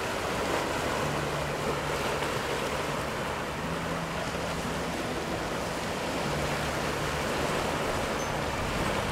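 Sea waves washing and breaking over low rocks on the shore, a steady rushing surf.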